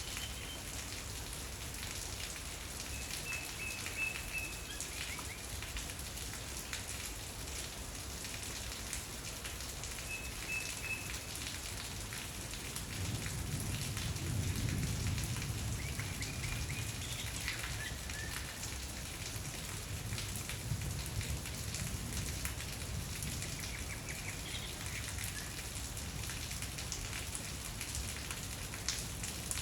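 Steady rain falling and pattering on surfaces, with a few short, high bird chirps now and then. A low rumble swells up near the middle and fades again.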